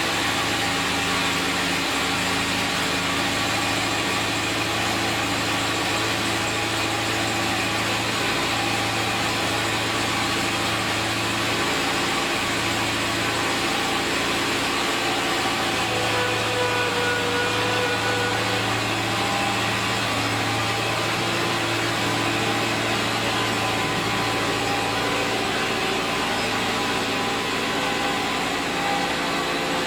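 24-horsepower Onan engine of a 15-inch-gauge 'Critter' locomotive idling steadily, its even running note holding level throughout.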